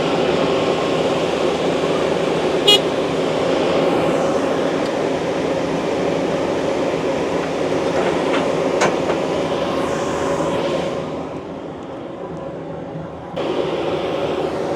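Heavy equipment engine running steadily under load, with two short sharp clicks; the sound drops quieter and duller about eleven seconds in and comes back abruptly a couple of seconds later.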